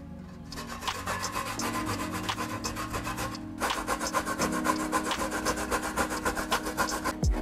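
Dried coconut flesh being grated on a metal box grater: fast, repeated rasping strokes, with a short pause about three and a half seconds in before the grating starts again.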